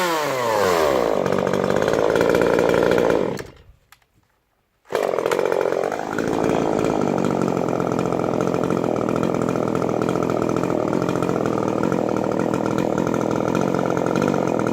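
Port-modified Stihl MS 150 TC two-stroke top-handle chainsaw with a modified muffler, running with its pitch falling off a rev and then holding steady. About three and a half seconds in the sound drops out for over a second, comes back abruptly, dips and recovers briefly, then runs steadily.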